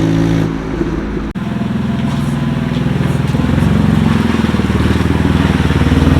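BMW 128i's inline-six engine running steadily with a fast, even pulsing from the exhaust, which sounds wrong because of an exhaust leak. The sound cuts off sharply about a second in and resumes, getting louder toward the end.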